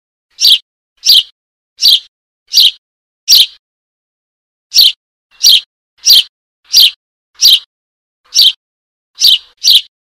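Fledgling Eurasian tree sparrow begging calls, a baby calling for its parent to come and feed it. Short high-pitched chirps are repeated about once every 0.7 seconds, with a pause of about a second midway.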